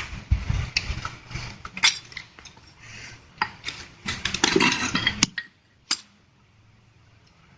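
Metal scooter CVT parts clinking and knocking as they are handled and fitted together: a string of sharp clinks, busiest around four to five seconds in, stopping a little after five seconds.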